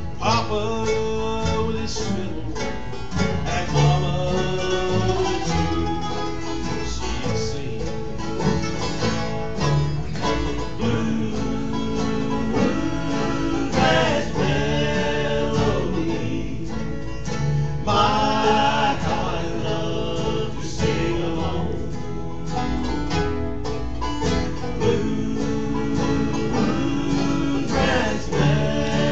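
Bluegrass band playing live: acoustic guitar, mandolin, banjo and upright bass, with a singing voice over the instruments.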